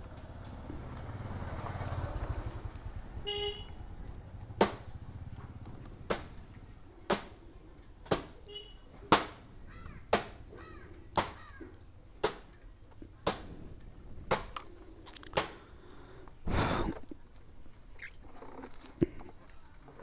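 A low rumble swells over the first few seconds, then a vehicle horn gives a brief toot. After that comes a regular series of sharp knocks, about one a second, with a longer noisy rasp near the end.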